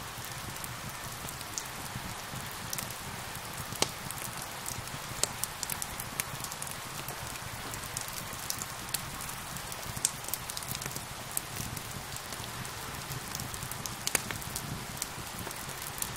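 Steady rain hiss together with a wood fire crackling, its sharp pops and snaps scattered irregularly throughout, a few louder pops standing out.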